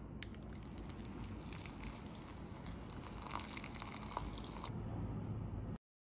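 Water poured in a stream into a glass bowl of dried shiitake slices, splashing for about four seconds before the pour stops; the shiitake are being soaked to soften them.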